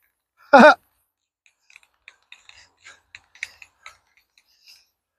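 A brief, loud vocal sound from a man, like a short hum or grunt, about half a second in, followed by faint, scattered light clicks and taps.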